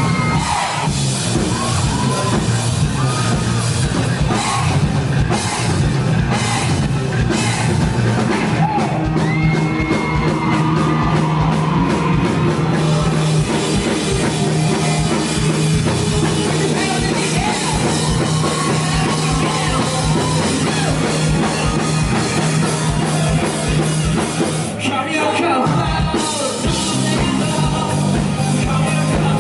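Rock band playing live, with drums, a steady bass line and singing over it. The band briefly thins out near the end before coming back in full.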